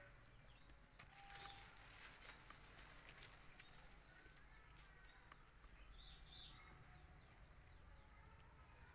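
Very faint outdoor ambience: light rustling and ticking in the grass, with a few brief high chirps, one about six seconds in.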